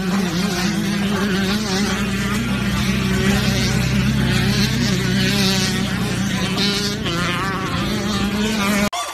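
Insects chirping and buzzing in a dense, continuous chorus, over a steady low hum.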